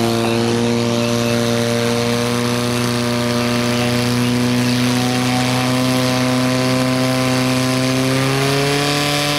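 Portable fire pump engine running at full throttle, a steady high drone that creeps up in pitch and rises briefly near the end, as it drives water through the hoses to the jets.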